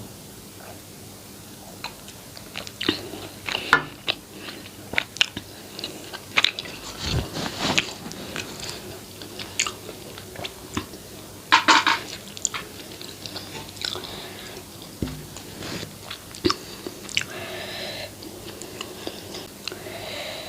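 Close-miked chewing and biting: irregular wet mouth clicks and crackles, with a louder burst of crunching about halfway through.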